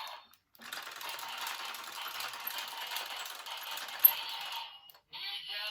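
A Zenkaiger Geartlinger toy, loaded with the Zenkai Majin gear, gives a steady fast rattling whir for about four seconds as it is worked, with a sharp click near the end. Its electronic voice or music starts just after.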